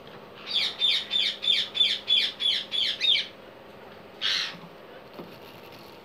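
Indian ringneck parakeet calling: a rapid series of about nine harsh, high calls at about three a second, then a single call about a second later.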